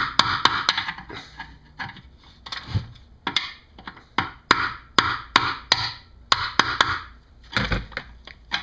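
A screwdriver prying a metal bolt-hole sleeve out of an intake manifold: sharp clicks and taps in short runs, with scraping between them.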